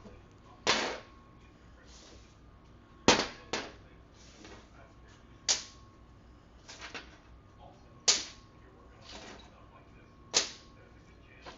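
A series of sharp knocks on the workbench, about one every two and a half seconds, one of them a quick double.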